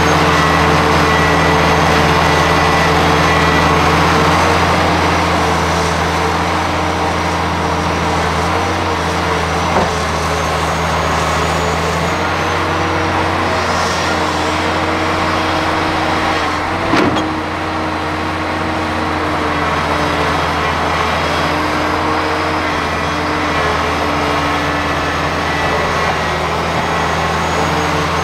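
Diesel engine of a large Hitachi crawler excavator running at a steady speed as it digs and swings. A single sharp knock partway through.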